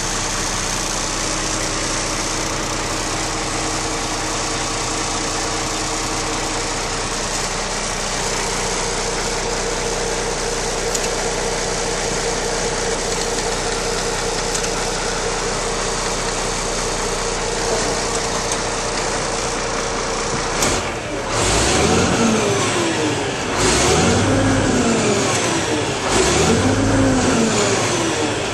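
Diesel engine of a Kenworth T800 concrete mixer truck idling steadily. About two-thirds of the way through it is revved three times, the pitch rising and falling with each rev.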